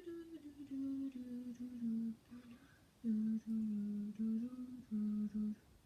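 A person humming a tune: a string of held notes with short breaks between them, pausing briefly midway and stopping shortly before the end.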